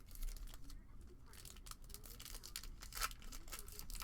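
A trading-card pack wrapper being torn open and crinkled, a run of short crackling rustles, loudest about three seconds in.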